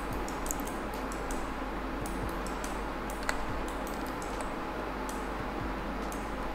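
Scattered, irregular clicks of a computer keyboard and mouse, a few a second, over a steady low hum.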